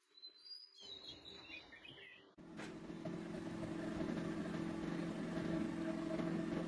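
A few high chirps, then from about two and a half seconds in a steady machine motor hum that starts abruptly.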